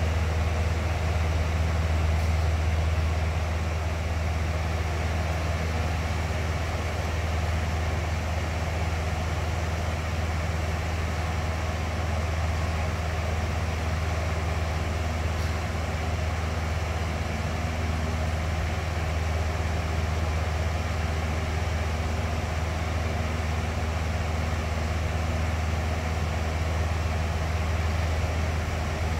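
Box fan running steadily: a deep hum under an even rush of air, with a few faint steady tones.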